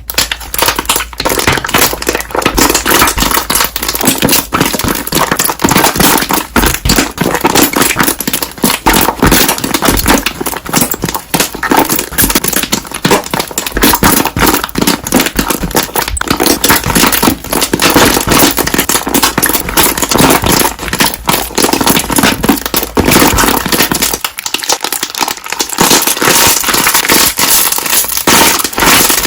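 Slime being pressed and squished so that its trapped air bubbles pop in a loud, dense crackle of rapid pops.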